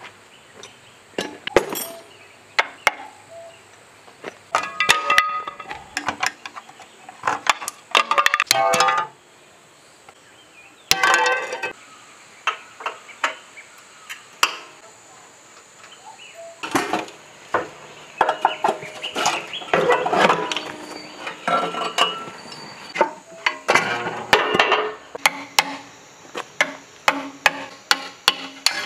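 Metal tools and parts clinking and knocking against the cast-iron block of a four-cylinder generator engine as it is taken apart: many sharp, irregular clanks, some ringing briefly.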